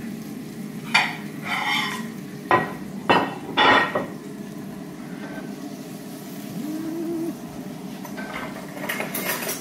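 Pots, pans and utensils being handled: a few sharp clanks and clatters in the first four seconds over a steady low kitchen hum, with a short low tone about seven seconds in.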